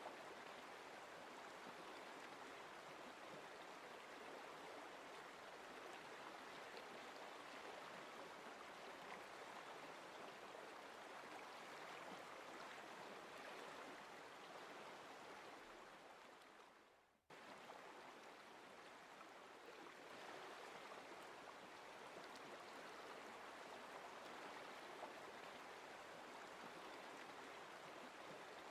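Faint, steady sound of a flowing stream. It fades out briefly about two-thirds of the way through and cuts straight back in, like a looped nature recording restarting.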